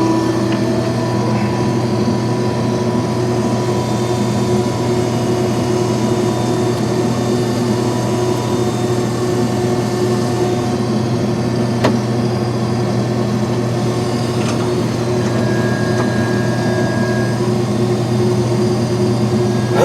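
Case IH 2188 combine running steadily with its unloading auger out and turning, emptying corn into a truck. A single short click about twelve seconds in.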